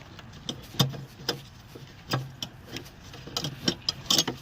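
Sharp plastic clicks and knocks as a 2002-06 Nissan Altima headlight assembly is worked free of its clips and pulled out, several irregular clicks with the loudest about a second in. A low steady hum runs underneath.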